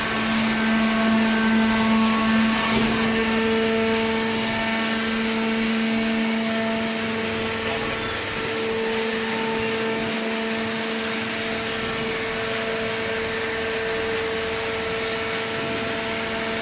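Automatic baling machine running: its hydraulic pump motor gives a steady hum, a strong low tone with higher overtones over a constant machine noise. The hum is a little louder for the first few seconds.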